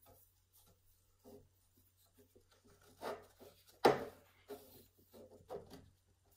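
Yarn being tied around a warp string on a wooden frame loom: faint rubbing and handling of the yarn, with a softer knock about three seconds in and a sharp knock a little before four seconds.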